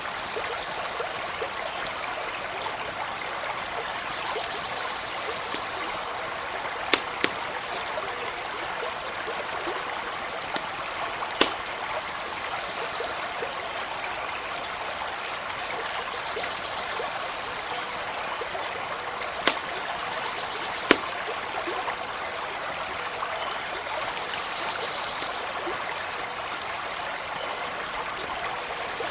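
Stream running steadily over stones, with a handful of sharp pops from a crackling campfire.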